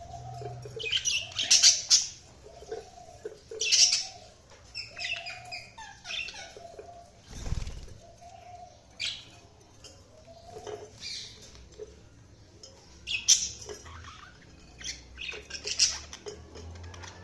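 Budgerigars chirping and squawking in short, irregular bursts of sharp high calls, with softer, lower repeated notes in between. A single dull thump comes about halfway through.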